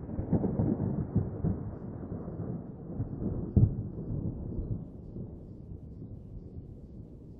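Distant thunder rolling, with a louder peak about three and a half seconds in, then dying away.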